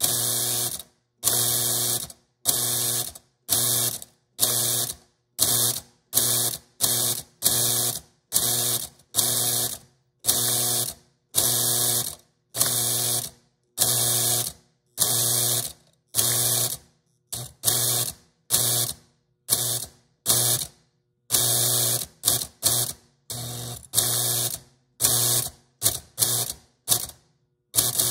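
Lionel 3662 operating milk car's electric mechanism buzzing in a rapid series of short bursts, a little more than one a second, as the milkman figure is worked out of the door to set milk cans on the platform. Each burst is a steady electrical hum with a hiss.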